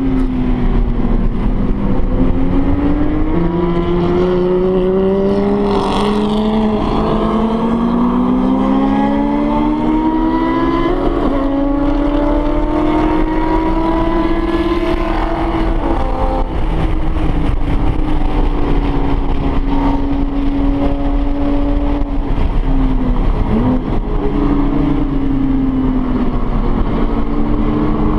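Porsche 911 GT3 RS's naturally aspirated flat-six under hard track driving, heard from inside the cabin. The engine note climbs slowly through a long pull for about the first half, then holds high and steady, with one brief dip and recovery near the end.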